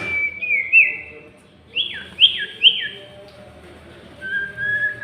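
Common iora (sirtu) singing in clear whistles: a long whistle with a quick wavering turn in the first second, three quick sharply falling slurred whistles around two seconds in, and a long steady lower whistle near the end.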